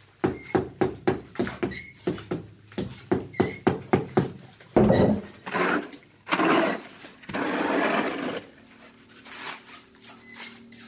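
Rapid, even knocking, about four strokes a second, for the first few seconds. Then a metal scoop scrapes and shovels through wet concrete in a mixing tub, in four rough strokes.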